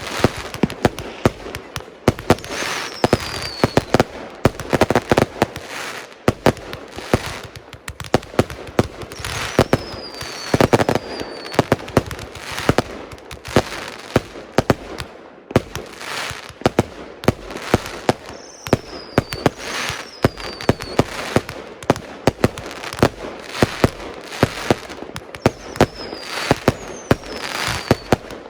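Multi-shot consumer fireworks cake firing a rapid string of shots, with bangs and crackling bursts one after another. Several short falling whistles are heard among them.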